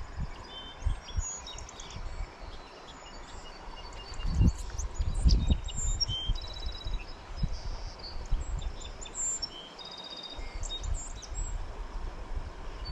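Small birds chirping and trilling repeatedly over a steady rush of flowing creek water, with a few low thumps about four to six seconds in.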